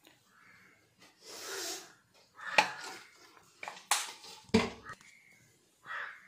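Kitchen handling noises: a short hiss about a second in, then a few sharp clicks and knocks.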